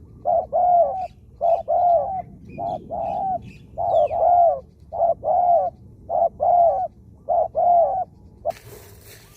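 Spotted dove cooing: about six phrases in a row, each a short coo followed by a longer rolling coo. A brief rustle near the end.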